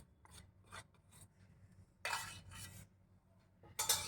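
Faint scraping and rubbing as the sesame-and-jaggery laddoo mixture and its bowl are handled. There are a few brief scrapes, a longer one about two seconds in, and a louder one near the end.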